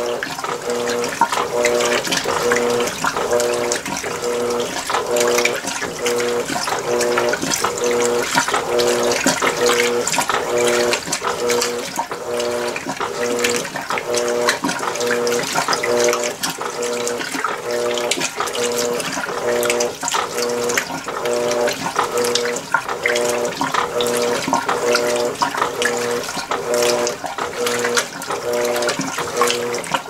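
Electrolux Premium Care LWI13 washing machine in its wash phase. Water and clothes slosh in the drum while the motor hums in short, even pulses, switching on and off in a quick regular rhythm as the wash action reverses.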